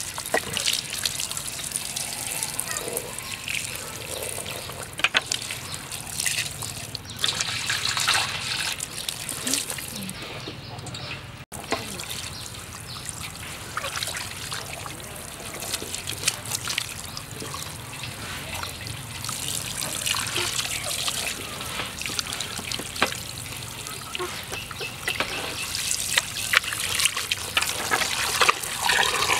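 A stream of running water pours and splashes onto a gutted stingray in a metal basin. Small wet splashes and clicks come from hands washing out the fish's body cavity.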